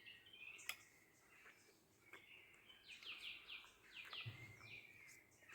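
Faint birdsong: a quick run of about six descending chirps about three seconds in, over quiet background hiss, with a few faint clicks.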